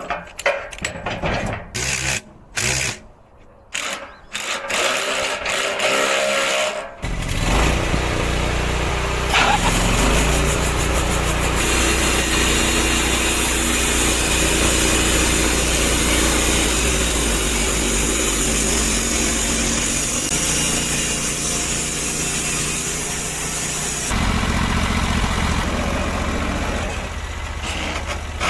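Several short, separate clunks and bursts of noise, then from about seven seconds a sawmill running steadily, its engine under load as the blade saws through a log.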